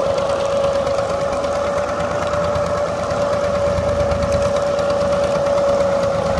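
Massey Ferguson 135 tractor engine running steadily, driving a sugarcane crushing machine through a shaft as cane is fed into it, with a steady whine held on one pitch over the engine's dense rattle.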